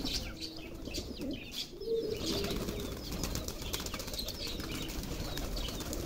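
A flock of pigeons flapping their wings as they take off, flutter and land, with many quick, irregular wing beats and claps.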